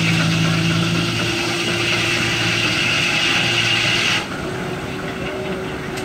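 Belt-driven circular sawmill running off a Baker steam traction engine: a steady mechanical whir with low hum and a high whine that cuts off abruptly about four seconds in.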